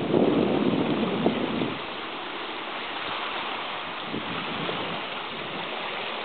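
Wind buffeting the microphone, a loud low rumble that drops away about a second and a half in, leaving a steady outdoor hiss of wind.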